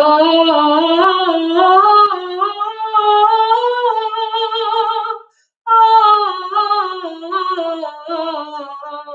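A woman singing a vocal warm-up exercise in triplets on an open vowel, climbing in small steps, then pausing for a breath about five seconds in and stepping back down the scale.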